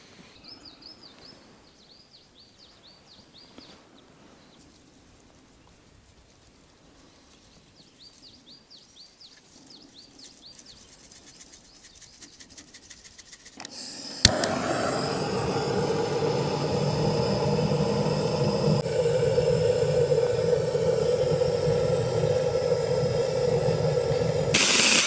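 Small birds chirping with short repeated calls over quiet forest ambience. About halfway through, after a sharp click, a loud steady humming drone starts suddenly, and it shifts slightly in tone a few seconds later.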